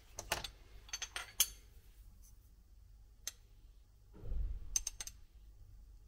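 Light clicks and taps from a metal spoon and a spice container being handled while ground ginger is spooned out, with a soft dull knock about four seconds in.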